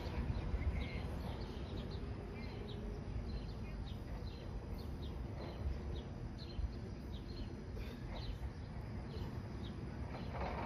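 Outdoor park ambience: birds chirping in short calls now and then over a steady low rumble.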